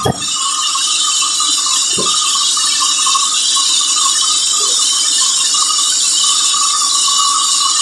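Sawmill saw cutting through a teak log: a steady, high-pitched hiss and whine. There is a brief thump about two seconds in.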